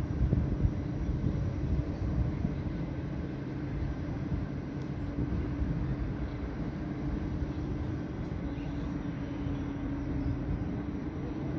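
A steady low rumble with a faint steady hum running through it.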